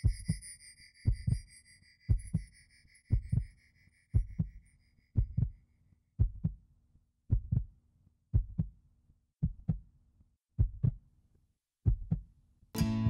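Slow heartbeat, a double thump about once a second. Over the first half a high shimmering chime fades away, and near the end guitar music begins.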